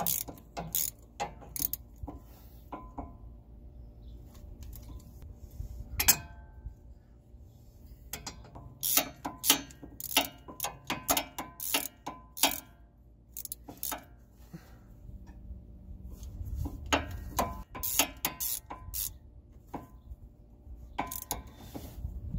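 Socket ratchet clicking in runs with pauses between, as the 15 mm bolts on the inner CV axle flange of a Chevy Silverado are tightened. One sharp metallic clink stands out about six seconds in.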